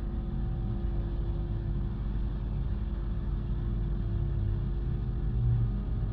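Steady low mechanical rumble with a constant hum, like a motor running.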